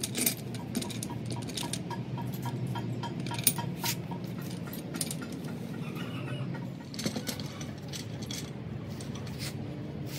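Light metallic clinks and taps of metal tools and parts being handled, over a steady low machine hum.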